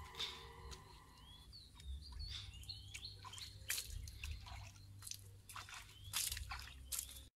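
Faint wet sounds: scattered soft drips and squishy clicks, like water dripping off a wet eel being handled, with a few short bird chirps about one and a half to two and a half seconds in.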